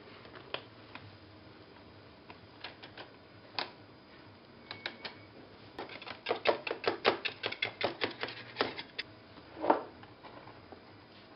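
Thin metal blade run around the inside wall of a metal springform pan to loosen a baked cheesecake, clicking and scraping against the pan in a quick run of about six clicks a second, after a few scattered knocks. A louder single thump comes near the end.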